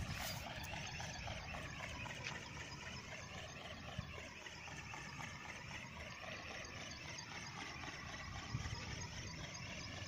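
Faint whine of a radio-controlled ornithopter's electric motor and gearing in flight, its pitch slowly wavering up and down.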